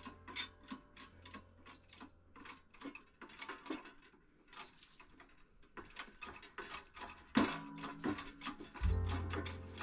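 Irregular metallic clicking and ratcheting from a hand-worked mechanism, with a low hum coming in near the end.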